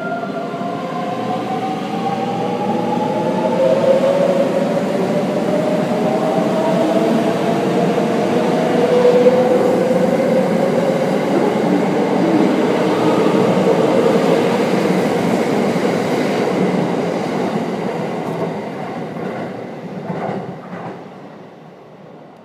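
JR West Shirasagi limited express electric multiple unit running past, its motors whining and rising in pitch over the first few seconds as it gathers speed, under a steady rumble of the cars going by. The sound fades as the last car clears, near the end.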